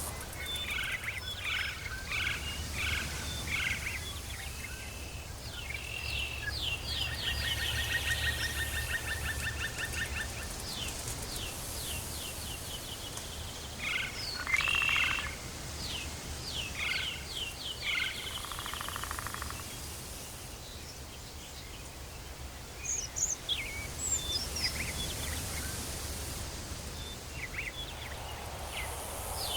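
Tropical forest ambience: many birds calling with short chirps and whistles, and a rapid pulsed trill several seconds in, over a steady low hum.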